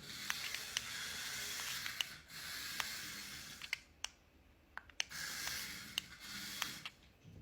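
Remote-control toy mouse running across the floor in three short runs, a hissy whirring scrape with scattered sharp clicks between the runs.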